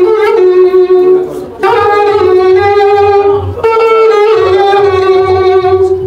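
Music from a wind instrument playing a melody of long, wavering held notes in phrases of about two seconds, with short breaks between them, over a steady low beat.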